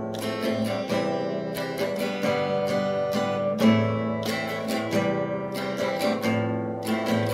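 Instrumental passage of a song: guitar strummed in a steady rhythm, a few strokes a second, with chord changes but no singing.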